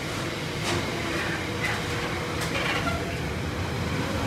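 Container freight train's loaded flat wagons rolling past at speed: a steady rumble, with a few sharp clicks and brief high squeals from the wheels.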